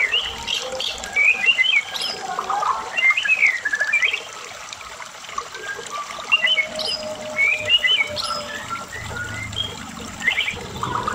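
Medan-type white-rumped shama (murai batu) singing in a full, varied song: fast phrases of rising and falling whistles and chattering notes, separated by short pauses.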